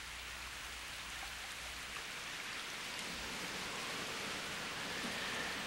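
Rainstorm sound effect: a steady hiss of heavy rain and wind, growing slightly louder.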